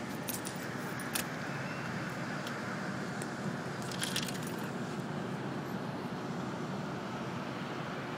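Steady hum of city traffic heard from a rooftop high above the streets, with a couple of brief clicks, a sharp one about a second in and a few more about four seconds in.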